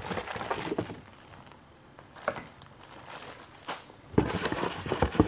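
Plastic packaging crinkling and rustling, with a few knocks from a cardboard box, as a polisher and its pads are unpacked. The rustle comes in the first second and again, louder, from about four seconds in.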